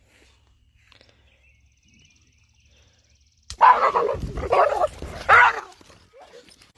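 Dogs yelping and barking in a sudden outburst about three and a half seconds in, typical of a shock from an electric fence wire, with rumbling handling noise as the camera is jerked about.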